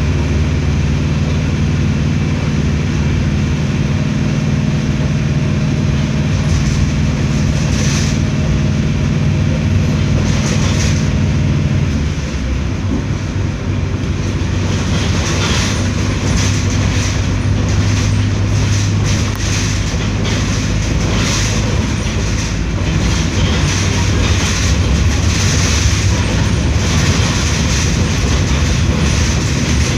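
Diesel engine of a Mercedes-Benz OF 1721L BlueTec 6 bus running under way with a steady drone. About twelve seconds in, the note dips and shifts. Clattering knocks and rattles run through the second half.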